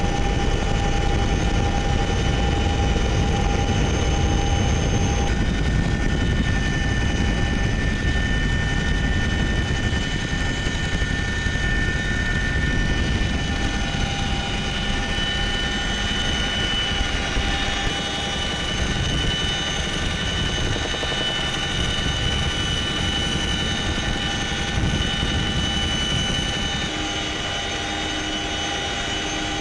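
Boeing CH-47 Chinook in flight, heard from inside the cabin: the steady din of its twin turboshaft engines and tandem rotors, with several high, steady whines over it.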